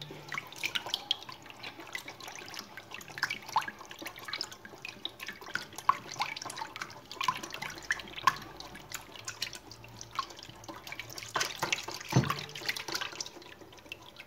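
A silicone whisk beating a thin liquid mix of milk, egg and yogurt in a bowl: many short, irregular wet splashes and clicks.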